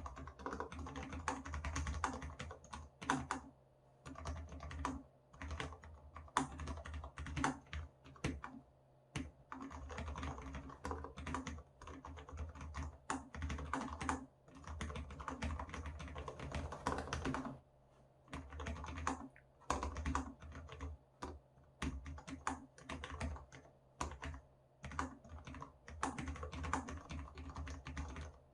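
Typing on a Cherry MX Board 1.0 Low Profile keyboard with Cherry MX Low Profile Red linear switches, in fast runs of keystrokes with short pauses between them. A low thumping under the keystrokes comes from the desk, not the keyboard.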